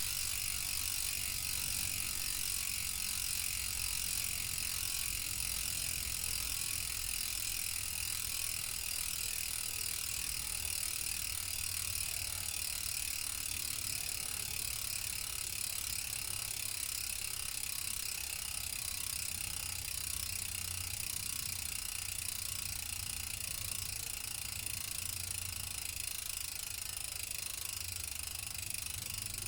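Shimano FH-MT401 rear freehub clicking steadily as the wheel spins freely, its pawls ratcheting, after a year of riding.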